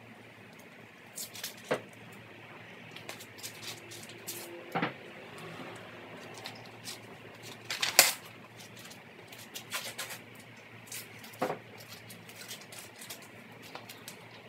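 Blue painter's tape and masking paper being handled by hand: scattered short rips and crinkles as tape is pulled and torn and paper is moved, the loudest about eight seconds in.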